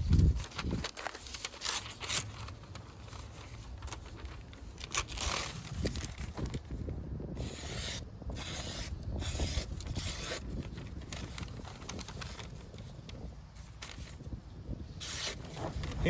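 Swiss Army knife's small blade slicing through newspaper held in the air: a run of short papery scrapes and rustles as strips are cut. Wind rumbles on the microphone throughout.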